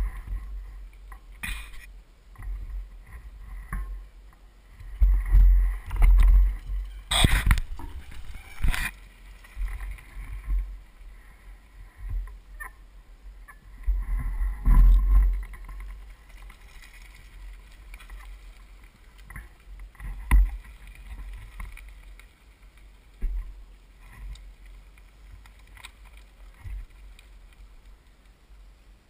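Low rumbling buffets on an action camera's microphone, coming and going in gusts and loudest twice, with scattered sharp knocks and clicks from the camera's mount on a mountain bike.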